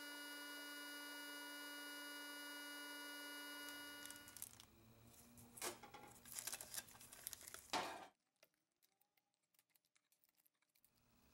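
A steady electrical hum with a whine of many overtones, cutting off about four seconds in. Then gloved hands handling a cast metal part: rustling, crinkling and scattered sharp clicks, the loudest near eight seconds, fading to a few faint ticks.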